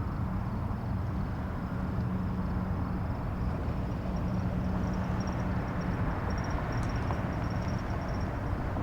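Morning outdoor ambience: a steady low rumble and hum, with a fast, high, thin chirping running through it and a few faint clicks.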